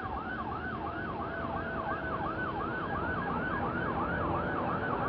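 Fire truck's electronic siren in fast yelp mode, its pitch sweeping up and down about three times a second, over a low rumble.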